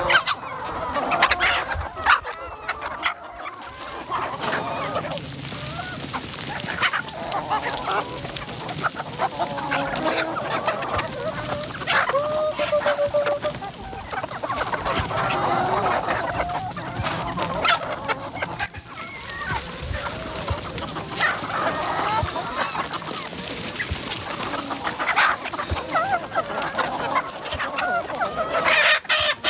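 A flock of free-range chickens clucking and calling continuously, many calls overlapping, with one longer held call about twelve seconds in.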